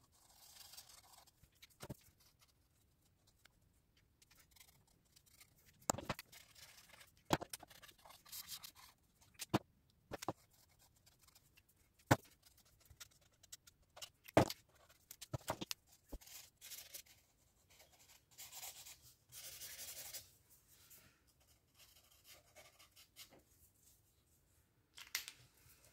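Faint scratching and rubbing of an alcohol marker's nib drawn across a colouring book page, with about ten short sharp clicks and taps as the markers are handled and put down.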